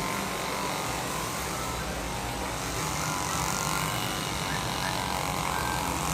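Handheld electric massage machine buzzing steadily.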